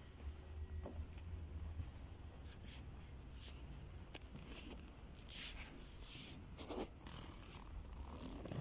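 Faint rustling and scraping of clothing and a handheld phone while walking, with a string of short scrapes and a click in the second half, over a low steady hum.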